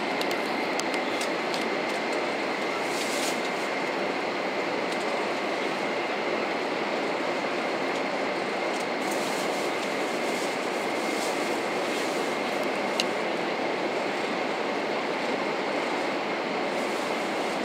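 Steady running noise of a 500 series Shinkansen heard inside the passenger car, an even rumble with a faint steady high tone over it. A few light clicks, with one sharper click about 13 seconds in.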